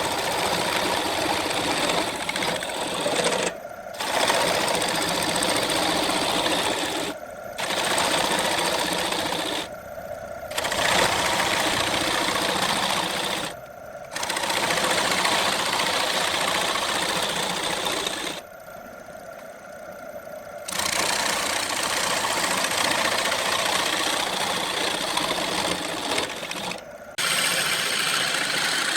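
Wood lathe spinning a wooden blank while a turning tool cuts into it, a harsh scraping noise that breaks off briefly every few seconds as the tool is lifted, once for about two seconds.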